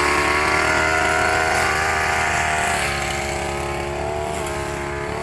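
Backpack brush cutter's small engine running steadily while cutting grass, its pitch and loudness easing a little after about three seconds.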